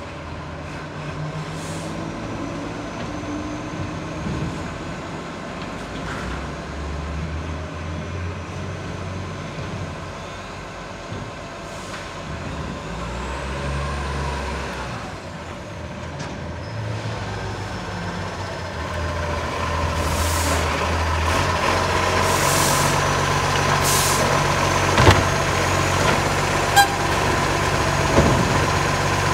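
Iveco side-loader garbage truck approaching, its diesel engine running steadily and getting louder as it nears. Air brakes hiss several times as it slows, and a couple of sharp knocks come near the end.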